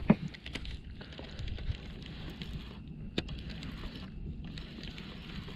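Footsteps and a few sharp knocks on shoreline rocks, the loudest just after the start and another about three seconds in, over a steady wind noise on the microphone.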